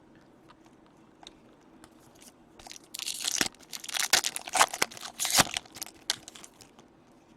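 A trading card pack wrapper being torn open and crinkled by hand, starting about three seconds in after a quiet stretch and lasting a few seconds, with some sharp crackles.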